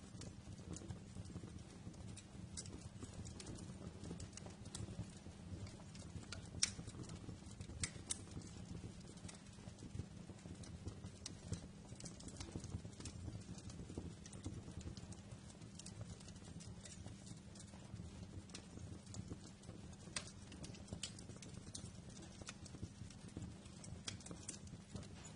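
Wood fire crackling: irregular sharp pops and snaps over a low steady rumble, with one louder pop about six and a half seconds in.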